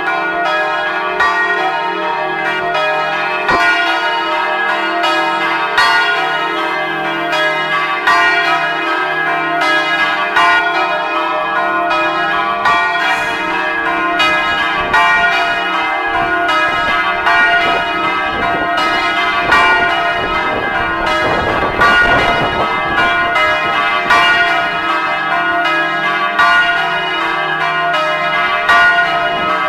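Three bronze church bells, tuned E-flat, F and G (one cast by De Poli in 2008, two by Francesco Broili), swinging in full peal with their strokes overlapping without a break. This is delopust ringing, which marks the end of work before a Sunday or feast day.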